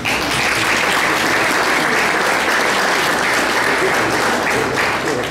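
Audience applauding, a dense clatter of many hand claps that starts at once and eases off near the end.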